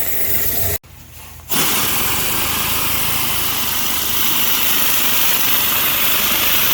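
Commercial pressure washer running steadily, its engine drone under the hiss of the high-pressure water spray on the patio floor. The sound drops out briefly about a second in, then comes back steady.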